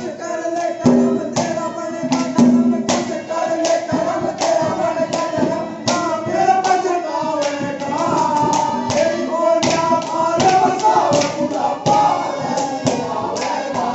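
Haryanvi ragni folk music: a wavering melody line over a steady pattern of hand-drum strokes.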